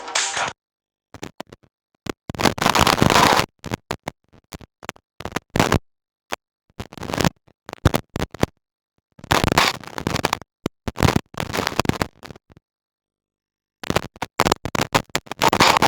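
Audio cutting in and out: irregular bursts of crackling noise, some under a second and some a second or more, broken by gaps of dead silence. It is the sign of a failing sound output or connection.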